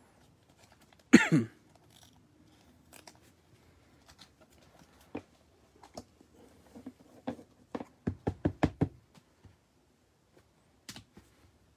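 Trading cards and a hard plastic toploader being handled on a table: light clicks and scrapes of card stock and plastic, with a quick run of about eight sharp taps about eight seconds in. One short, louder noise comes about a second in.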